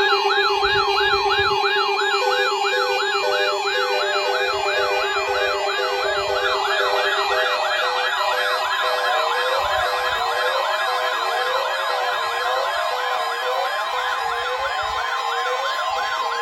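Several weather alert radios sounding their alarms together, answering the NOAA Weather Radio 1050 Hz warning alarm tone in a weekly test: overlapping warbling siren sweeps, two to three a second, over a steady tone and short beeps. A lower steady tone stops about halfway, as another set of rising sweeps joins in.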